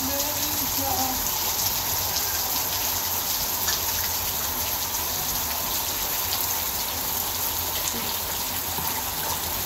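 Steady rain falling on a wet, puddled brick rooftop, with a faint voice briefly in the first second.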